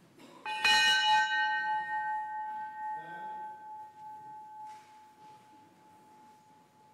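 A bell struck about half a second in, its clear ringing tone fading slowly over several seconds.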